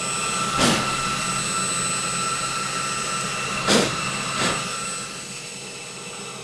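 Electric ducted fan of an RC jet (JETFAN-130) running steadily at low power with a steady whine. Two short rushes of noise come about half a second in and just before four seconds in. The sound eases slightly near the end.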